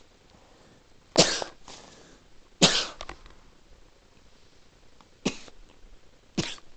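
A person coughing four times in short, separate coughs, a second or more apart; the first two are the loudest.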